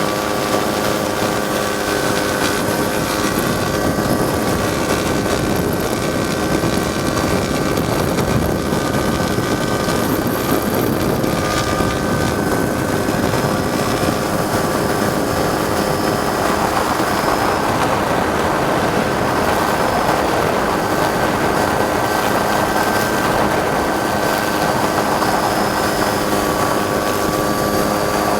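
Helicopter running steadily in flight, heard from aboard: a constant drone with several steady whining tones, and a rushing noise that swells for a few seconds past the middle.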